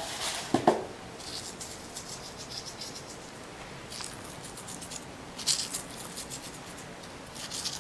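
Pinches of coarse kosher salt sprinkled by hand over raw beef short ribs and the cutting board: fine ticking and pattering of falling grains in several short runs. A single knock sounds just over half a second in.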